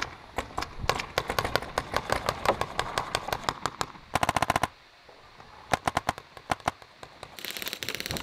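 Paintball markers firing in a firefight, with sharp pops scattered through. About four seconds in comes a rapid string of about ten shots in half a second, from the Etek 5 marker at hand, and another quick volley follows a second later.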